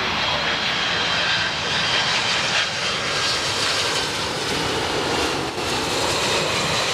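Boeing 767-200ER's twin jet engines on low final approach with gear down, passing overhead. A loud, steady jet noise with high whining tones that drift down in pitch as it goes by.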